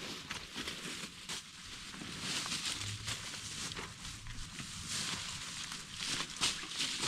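Someone pushing through dry leaf litter and brush on foot: irregular rustling with small twig crackles.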